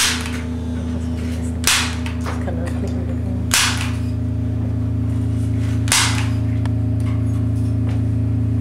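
Sharp, loud cracks like shots, one about every two seconds, each dying away quickly, over a steady low droning hum.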